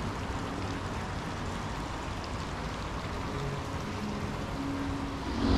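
Steady, even hiss of background noise, with a few faint low tones in the second half.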